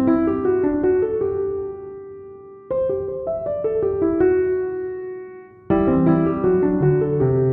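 Background piano music: chords of notes that ring and fade, with fresh phrases struck about three and six seconds in.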